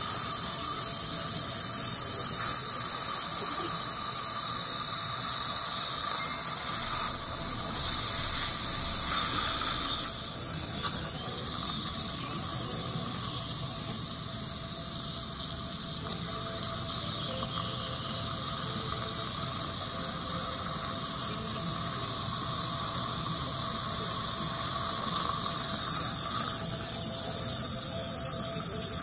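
Dental saliva ejector sucking steadily, a continuous hiss with a faint squealing tone.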